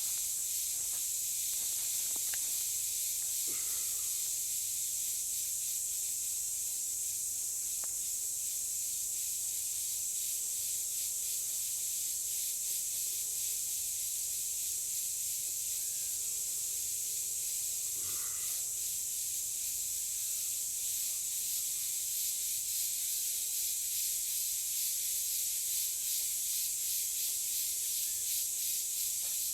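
Steady, high-pitched insect chorus in woodland, a shrill hiss with a fine pulsing texture that grows more rhythmic near the end, with a few faint chirps and clicks.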